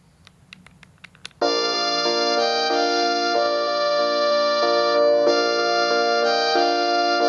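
A few faint clicks, then, about a second and a half in, a Panasonic KX-TGD62xE cordless phone starts playing a polyphonic ringtone: a melody in piano-like chords, changing note about every half second to a second.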